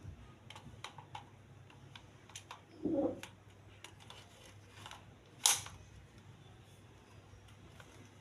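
Light mechanical clicks from a toy Beretta M9A3 pistol being handled. There is a short rubbing sound about three seconds in, and one sharp, louder click about five and a half seconds in.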